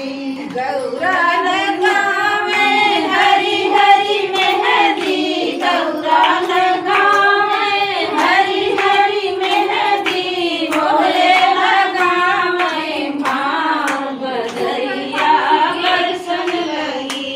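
A group of women singing a rustic dehati folk song together, with hands clapping in a steady rhythm.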